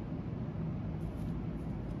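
Steady low hum of background noise, with faint handling of hard plastic toy pieces and a light plastic click near the end.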